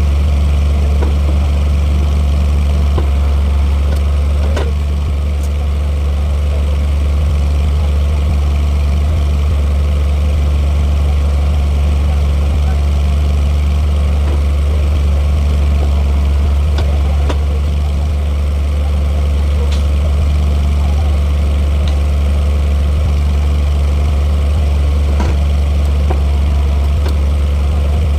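Rebar bending machine running steadily with a loud, constant low hum while bending 32 mm reinforcing bar, with a few faint clicks.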